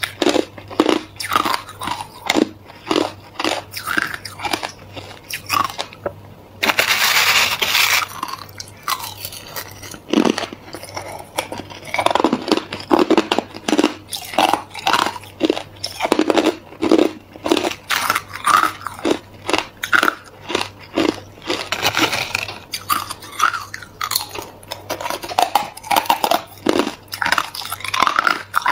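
A person biting and chewing mouthfuls of hard crushed clear ice: a rapid run of sharp cracks and crunches, with a denser stretch of crackling about seven seconds in.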